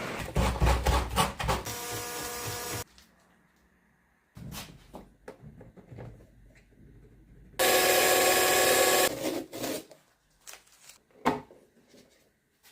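Workshop build sounds: knocks and clatter of parts and tools being handled, with two brief runs of a small power tool or motor, a short whine about two seconds in and a louder run lasting about a second and a half near eight seconds in.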